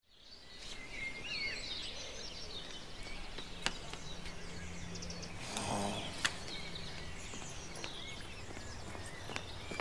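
Outdoor ambience fading in, with birds chirping, a few sharp clicks, and a brief low hum about halfway through.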